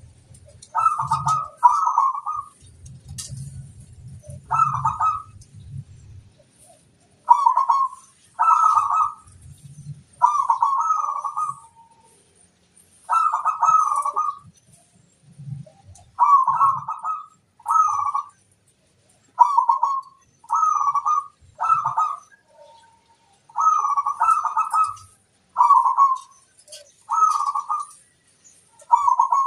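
Zebra dove (perkutut) singing: a run of short, loud, rolling coo phrases, one every second or two, each phrase made of quick coos.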